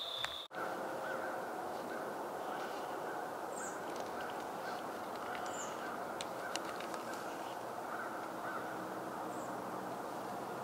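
Outdoor woodland ambience: a steady background rush with a few short, faint bird calls scattered through it, after a brief drop-out about half a second in.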